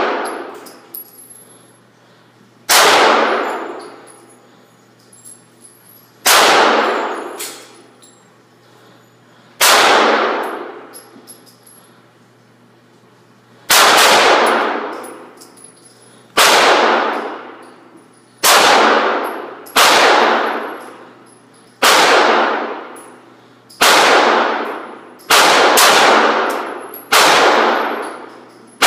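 Springfield XD 9mm pistol fired twelve times, each shot a sharp crack followed by a ringing echo of the indoor range that dies away over a second or two. The shots come three to four seconds apart at first and quicken to about one a second near the end.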